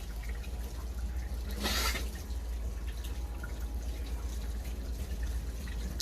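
Water running from a tap and splashing, with many small drips and one louder splash just under two seconds in.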